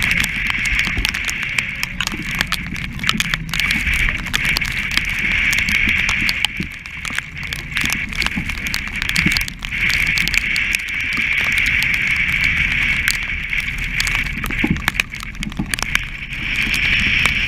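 Heavy-weather sailing noise at the bow of a yacht: waves breaking and rushing past the hull, spray spattering the camera, and wind, with a loud high hiss that swells and fades every few seconds over a low rumble and many sharp crackles.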